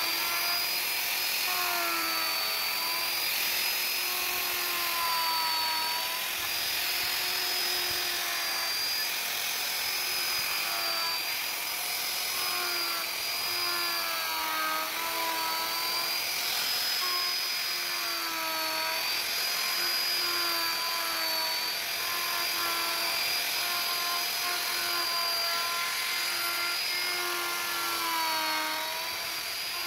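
Electric wood router with a straight bit cutting into wood, its motor running with a high whine over a steady hiss. The pitch wavers up and down as the router is guided through the cut.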